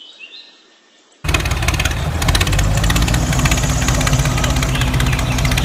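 The small engine on a handmade miniature model tractor starts abruptly about a second in and runs steadily with a fast, even chatter, after a brief quiet with faint bird chirps.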